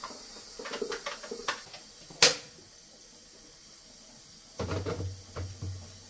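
Plastic clicks as a filter is fitted into a Roborock robot vacuum's clear dustbin, with one sharp snap a little over two seconds in as it seats. Near the end come duller knocks as the bin is pushed into the robot.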